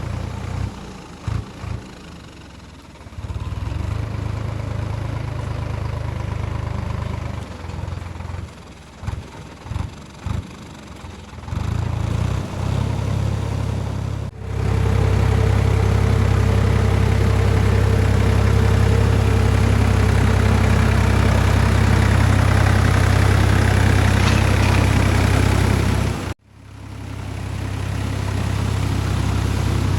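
Solis 5220 tractor's diesel engine running, its low hum rising and falling through the first half, then louder and steady. The sound breaks off abruptly about 14 seconds in and again near 26 seconds, fading back up afterwards.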